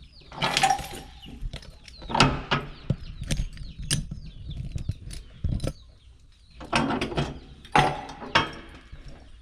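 A door being closed and locked with a key: several bursts of metallic clicks, rattles and knocks from the latch and lock.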